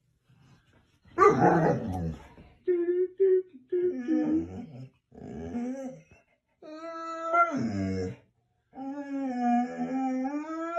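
Pit bull-type dog moaning and whining in drawn-out calls that sound like a cow. A loud rough grumble comes about a second in, then a few short calls, then two long moans near the end, the first dropping in pitch as it ends.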